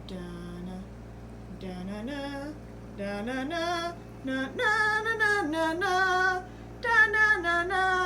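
A woman singing a tune unaccompanied, in held notes that waver in pitch, in short phrases with brief pauses between them.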